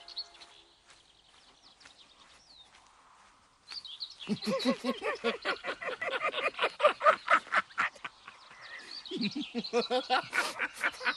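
Two men laughing hard, a fast run of choppy cackling guffaws starting about four seconds in, easing briefly and picking up again near the end. Before the laughter, faint bird chirps.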